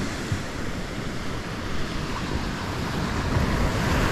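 Surf washing steadily onto a sandy beach, with wind buffeting the microphone.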